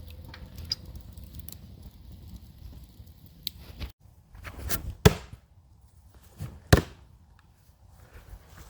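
Two sharp impacts about a second and a half apart, each just after a short rushing sound, over a low steady rumble.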